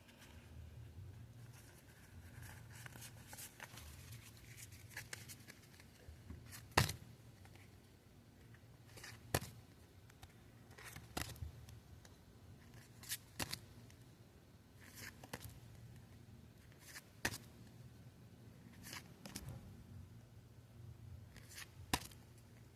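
Pokémon trading cards being handled and flipped through, with a dozen or so light, sharp snaps and ticks at irregular intervals, the loudest about seven seconds in.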